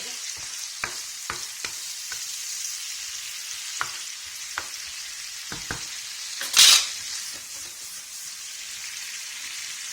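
Chicken and chopped vegetables sizzling steadily in oil in a shallow paella pan while being sautéed, with scattered clicks of a utensil against the pan and one louder scrape about two-thirds of the way in.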